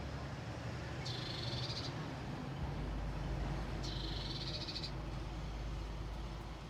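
Two short, rapidly pulsed high trills from an animal, each about a second long and about three seconds apart, over a steady low hum.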